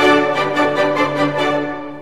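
Orchestral classical music: strings play quick repeated notes over a held chord, then fade away toward the end.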